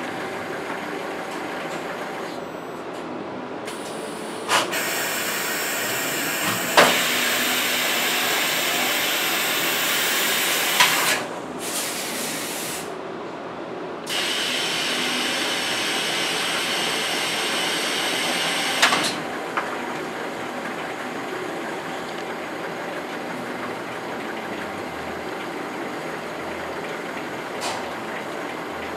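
Automated pallet dispenser running: a steady machine hum with two long stretches of loud air hiss, several seconds each, and sharp clanks as the hiss starts and stops and once in between.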